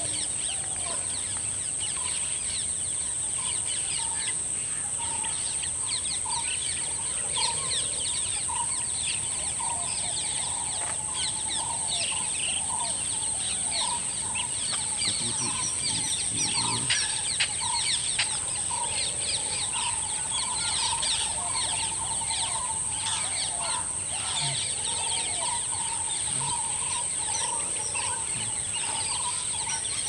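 Countryside bird chorus: many small birds chirping, with one bird repeating a short note over and over, all over a steady high-pitched insect drone. A few short, lower calls stand out now and then.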